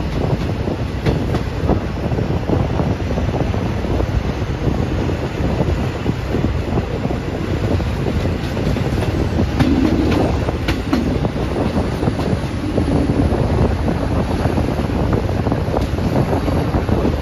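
Moving passenger train heard from on board: a steady rumble with the wheels clacking over the rail joints.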